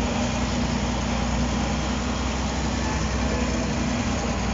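Diesel engine of a piece of heavy equipment running steadily, heard from inside the operator's cab.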